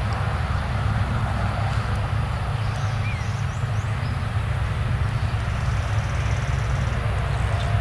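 Claas Lexion combine harvester working through standing grain: a steady, low drone of its engine and threshing machinery.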